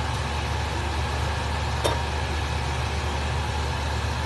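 Steady low hum with an even hiss over it from a pan cooking on the stove, with one short click just under two seconds in.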